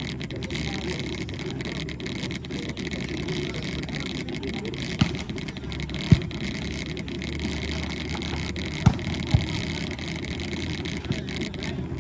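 A volleyball being struck in a rally: sharp slaps about five and six seconds in, then two more close together near the nine-second mark, the second of them the loudest. Under them runs a steady low background noise.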